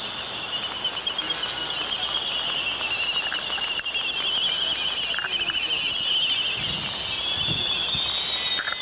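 Laysan albatross chick begging to be fed: a high, quavering squeal held almost without a break. A few low knocks come near the end.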